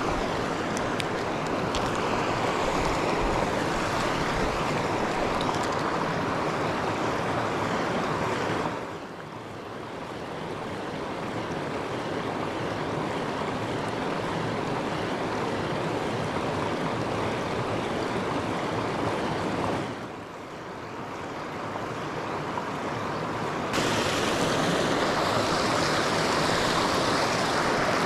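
River rapids rushing, a steady loud wash of moving water. Twice the sound drops off suddenly and then builds back up.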